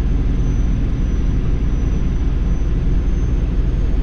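Semi-truck driving, heard from inside the cab: a steady low rumble of engine and road noise.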